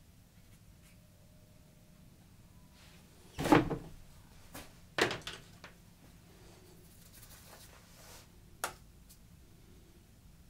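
A few knocks and clunks in a small, quiet room, like hard objects being set down or a cupboard closing. The loudest comes about three and a half seconds in, a second about five seconds in with a few small rattles after it, and a short, sharp knock near the end.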